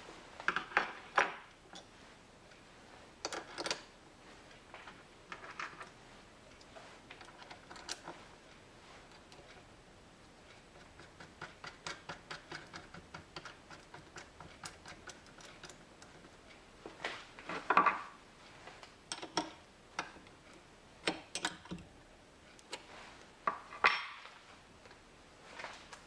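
Metal parts and hand tools clinking and knocking on a workbench, in scattered sharp clanks. A run of quick, small ticks comes in the middle.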